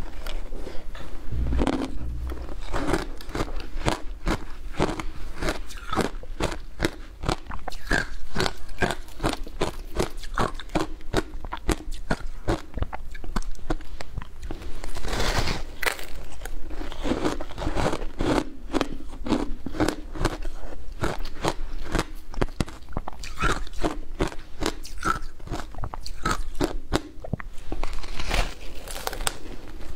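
Packed shaved ice being bitten and chewed: a dense, continuous run of crisp crunches and crackles, with louder bites about halfway through and again near the end.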